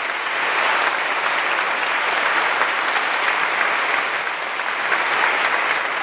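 Audience applauding: a dense, steady mass of clapping.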